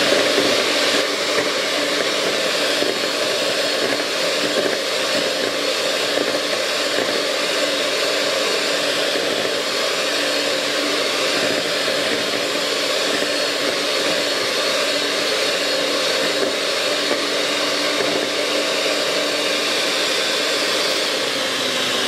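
Perfezza electric hand mixer running steadily at speed, its beaters whirring through thin chocolate sponge batter in a stainless steel bowl, beating it smooth and free of lumps.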